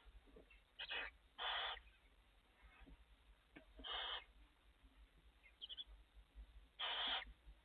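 Barn owls in a nest box making four short rasping hisses, about a second in, at one and a half seconds, at four seconds and near seven seconds, with a couple of faint high peeps between them.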